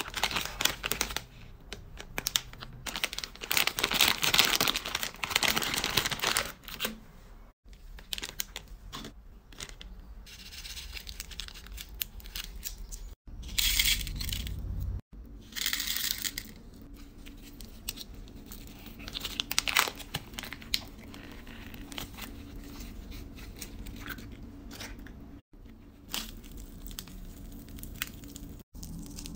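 Crinkly plastic candy wrappers being torn open and rustled by gloved hands, in a series of short bursts broken by abrupt cuts.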